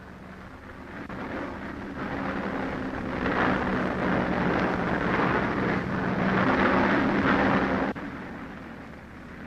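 Fighter planes' piston engines droning as a squadron takes off. The sound swells over the first few seconds, then drops off sharply near the end to a fainter hum.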